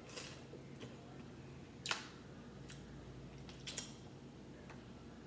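Close-up sounds of eating crab legs by hand: a handful of scattered short, sharp clicks and smacks from fingers, lips and shell, the loudest about two seconds in, over a faint steady hum.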